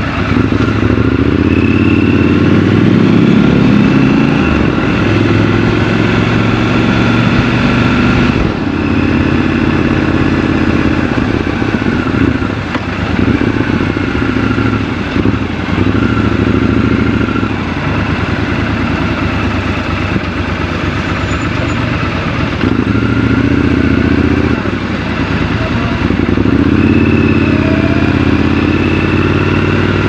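Triumph Scrambler 1200 XC's parallel-twin engine under way in traffic, heard from the rider's seat, its pitch rising under throttle and dropping back again and again as it accelerates and eases off.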